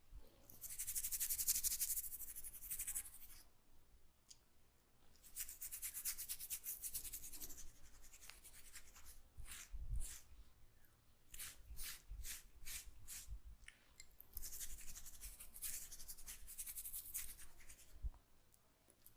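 Hands rubbing oiled hair and scalp close to the microphone, in three long rubbing passes. Between them comes a run of about ten short, separate strokes.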